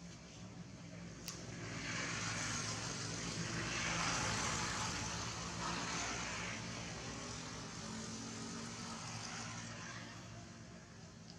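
Engine noise of something passing: a low steady hum under a rushing noise that swells to a peak about four seconds in, then slowly fades away.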